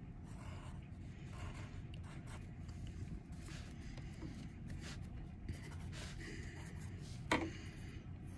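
Faint scratching of a pencil on paper in light sketching strokes, with one short sharp sound near the end.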